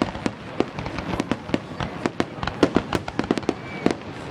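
Fireworks exploding in rapid, irregular succession: a dense string of sharp bangs and crackling reports, several a second, with echo trailing after them.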